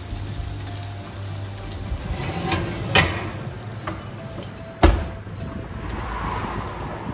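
Hot oil sizzling in an oven tray of zucchini fritters while the oven is worked, with a sharp knock about three seconds in and a louder deep thump just before five seconds as the oven door and tray are handled.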